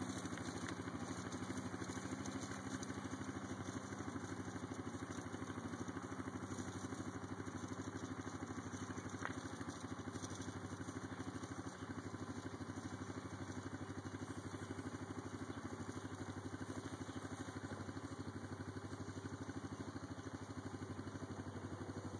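Small engine of a Suzuki 50 cc youth quad ATV running steadily at low speed, with a fast, even pulse.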